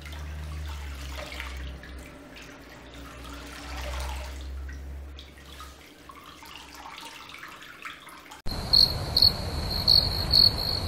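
Water trickling and dripping as a soaked towel is wrung out over a basin of water, over a low hum. Near the end it cuts abruptly to louder cricket chirping, about two to three chirps a second, edited in as a sound effect.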